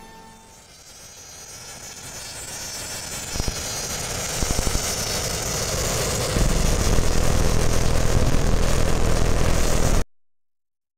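A rushing, hiss-like noise that swells steadily louder. A deep rumble joins it about six seconds in, and it then cuts off abruptly into silence near the end.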